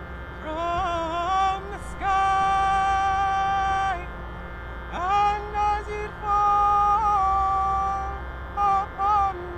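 A voice sings slow, drawn-out notes with wavering ornaments between them, one note held for about two seconds and another for almost two, then two short notes near the end, over a steady low drone.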